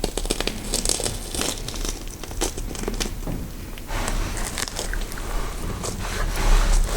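Horror sound effect of flesh being scraped and cut: a continuous, irregular run of crunching, tearing and scraping strokes, growing louder from about four seconds in, with the loudest stretch near the end.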